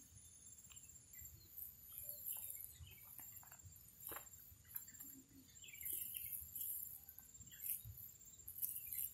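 Faint outdoor ambience: a steady high insect trill with scattered short bird chirps.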